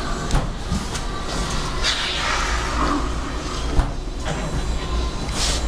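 Steady low rumble and hiss of room noise, with a few short knocks, the clearest a little before four seconds in.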